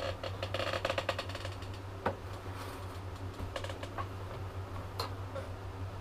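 Light clicking and tapping of small tools being handled at a rod-wrapping bench: a quick flurry of clicks in the first second and a half, then a few scattered single taps, over a steady low hum.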